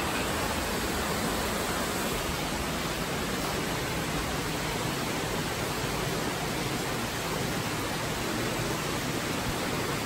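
Steady rush of a waterfall inside a narrow rock gorge, an even noise of falling water without breaks.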